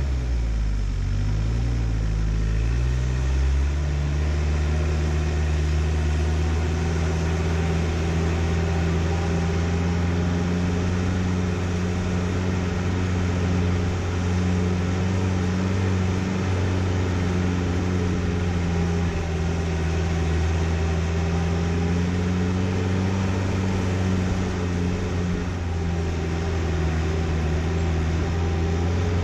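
Four-wheel-drive vehicle's engine running at low speed on a rough dirt track, a steady drone. Its pitch shifts in the first few seconds as the engine speed changes, then holds.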